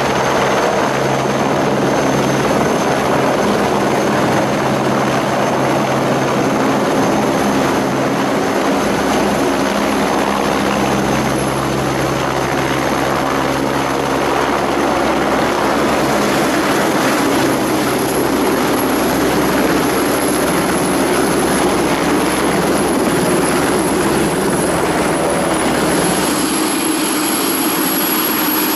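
Light turbine helicopter hovering and setting down on a helipad, its main rotor and engine running loud and steady. Near the end the deep rotor sound drops away as it settles, and the high turbine whine climbs slightly.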